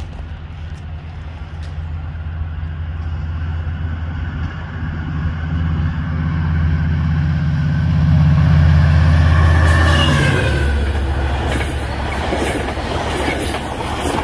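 A diesel locomotive leading a Coaster commuter train approaches and passes close by. Its engine drones steadily, growing louder to a peak about nine seconds in, then drops in pitch as it goes past. The bilevel passenger cars follow with rapid clicking of their wheels over the rails.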